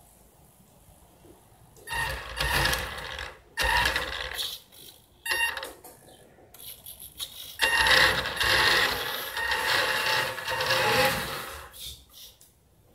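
Radio-controlled model Porsche 934 car's electric motor and gears whining in repeated bursts of throttle as it drives over a wooden floor, stopping and starting, with the longest and loudest run starting about eight seconds in.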